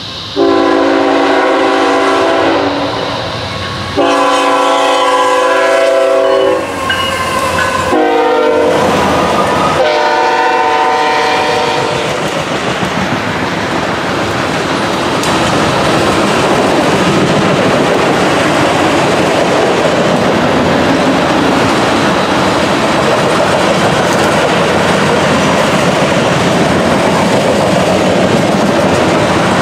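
Freight locomotive's multi-chime air horn sounding the grade-crossing signal: two long blasts, a short one and a final long one. It is followed by the steady rumble and clickety-clack of tank car wheels rolling past over the rail joints.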